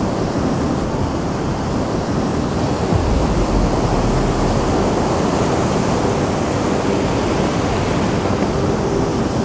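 Baltic Sea surf breaking and washing around an old wooden pier, a steady rushing. About three seconds in, a low rumble of wind on the microphone joins it for a second or so.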